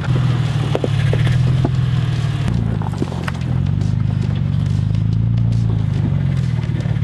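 Off-road truck engine running at low speed, with scattered clicks and knocks over it; the engine note shifts slightly about two and a half seconds in.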